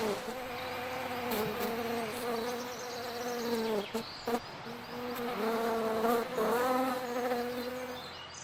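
A flying insect, such as a bee or fly, buzzing close by. Its buzz holds a steady pitch that wavers, sags and breaks off briefly near the middle as it moves about.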